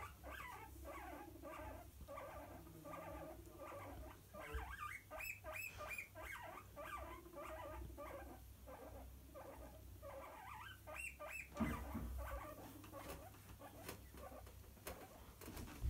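Guinea pigs squabbling: a continuous run of short chirping, squeaking calls, with sharper high squeals around five seconds in and again near eleven seconds. A single bump near twelve seconds is the loudest moment.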